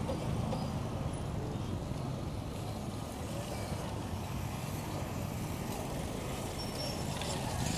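Road traffic: motor vehicle engines running and passing, a steady low rumble.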